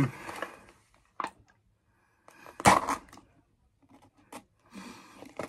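A Pringles tube being opened by hand: the plastic lid coming off and the foil seal peeled back, with a short loud rip about two and a half seconds in, amid lighter clicks and rustling.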